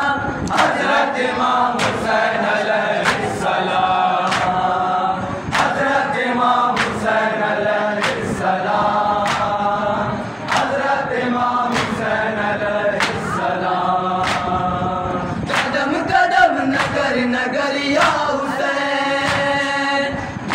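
A group of men chanting an Urdu noha, a lament for Imam Hussain, in unison. Hands strike chests together in time with it about once a second: matam.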